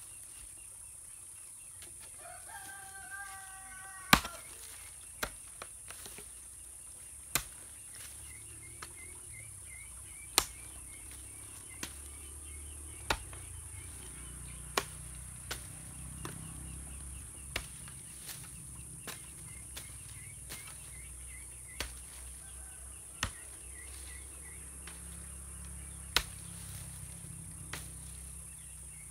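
A hoe blade chopping into red clay soil, a sharp strike every one to two seconds. A rooster crows once a few seconds in, over a steady high insect hiss.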